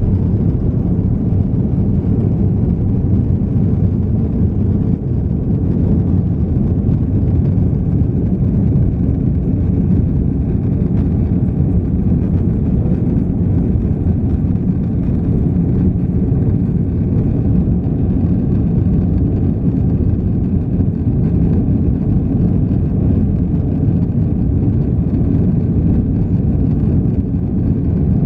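Airbus A330-200 jet engines and rushing airflow heard from inside the cabin during liftoff and initial climb: a steady, deep roar.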